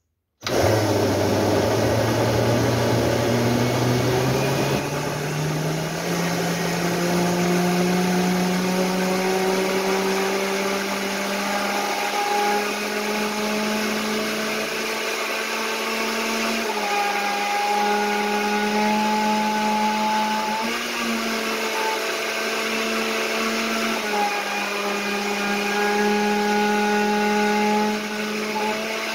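Countertop blender switched on and running, blending oats and liquid. Its motor pitch climbs over the first several seconds as it speeds up and the load eases, then holds steady with slight wavers.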